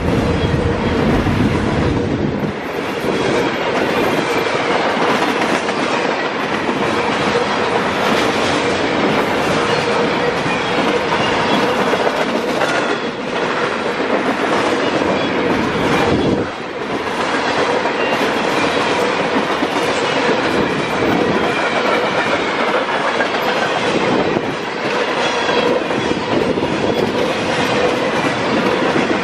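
Norfolk Southern freight train of container flatcars rolling past close by: a steady rumble of wheels on rail with a rhythmic clickety-clack over the joints, and a steady tone running through it.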